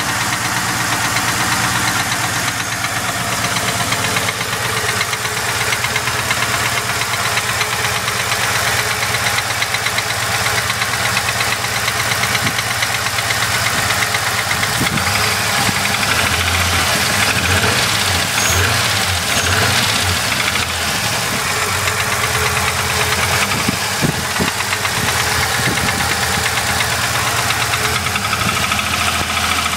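Supercharged L67 3.8-litre V6 of a Holden VS Commodore running at idle with a steady, rapid knocking, a knock whose cause the owner does not know.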